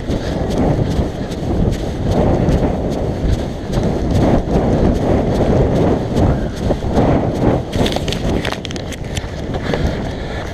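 Footsteps of a person running on grass and a dirt path, a rhythmic thudding, over a heavy rumble of wind and motion on the microphone.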